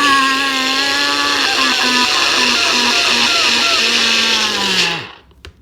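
Blender motor running loaded with milkshake ingredients: a loud whirring whine over hiss, its tone stuttering for a stretch in the middle as the contents churn. It then winds down in pitch and stops about five seconds in, followed by a couple of light clicks.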